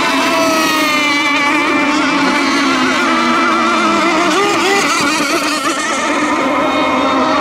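Several radio-controlled racing boats running flat out together, their motors whining, each one's pitch wavering up and down on its own.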